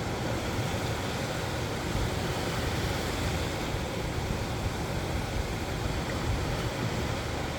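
Surf washing steadily onto a sandy beach, an even hiss of waves over a low rumble.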